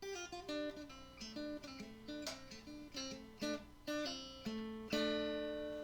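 Intro music: a short acoustic guitar phrase of picked notes, ending on a strummed chord about five seconds in that is left to ring and fade.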